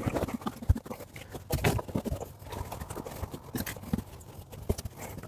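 Irregular knocks, taps and rustling from hands-on work at wooden wall framing as stone-wool insulation is handled and fitted.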